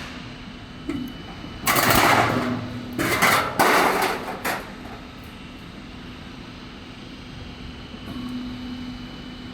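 Metal roofing tile roll-forming machine running with a steady low hum, broken about two seconds in by a loud stretch of rushing, clattering noise in several bursts that lasts about three seconds.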